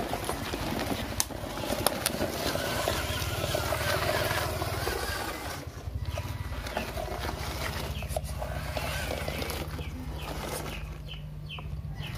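Small electric motor of a homemade RC pickup truck running steadily while its tyres roll and crunch over dirt and gravel.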